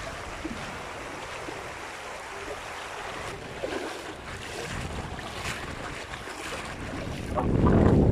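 Fast-flowing river water rushing steadily, with wind blowing. About seven seconds in, a strong gust hits the microphone and the low buffeting noise grows much louder.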